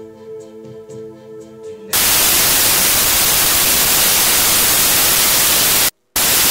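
The last held chord of a song, then about two seconds in a sudden loud burst of white-noise static that cuts out for an instant near the end and comes back.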